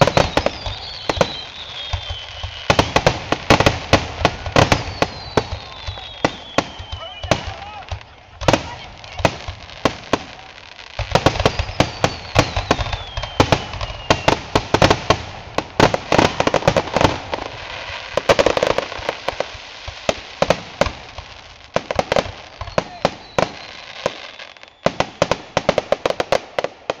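Fireworks finale: a rapid, nearly continuous barrage of bangs with crackling between them, and several long whistles falling in pitch.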